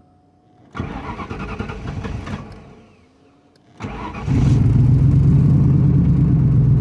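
A 4.6 L V8 is cranked by its starter without catching. It is cranked again about four seconds in, fires and settles into a steady idle, running with a new OEM intake bypass valve fitted to cure a misfire on cylinders 7 and 8, and it sounds a little bit better.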